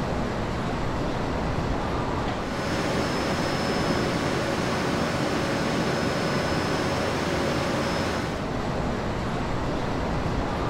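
Steady rushing industrial shop noise from heavy-equipment machinery. From about two and a half seconds to eight seconds it turns brighter and hissier, with a thin, steady high whine over it.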